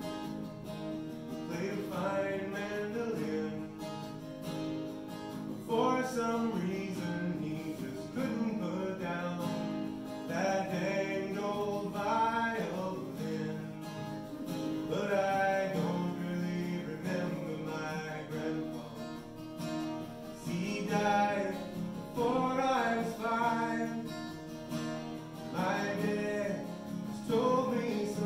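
Acoustic guitar played solo and live, picking out a melody in an instrumental break between verses of a song.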